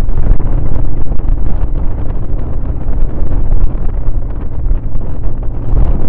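Heavy wind buffeting on a microphone mounted on a motorcycle riding fast over a dirt track, with the motorcycle's engine running underneath.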